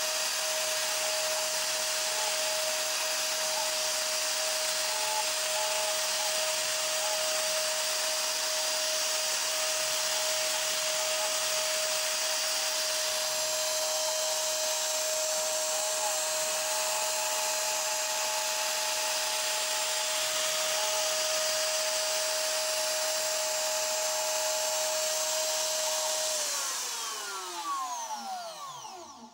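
NymoLabs 710 W trim-router spindle on a CNC router, running at a steady high whine while a V-bit engraves lettering into a wood board. Near the end the spindle switches off and its pitch falls away as it spins down to a stop.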